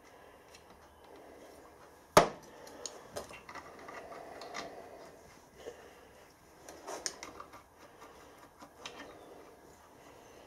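Metal parts and a hex key being handled while the main bearing caps of a small steam engine are clamped down on the crankshaft: a sharp metal clink about two seconds in, then scattered lighter clicks and knocks.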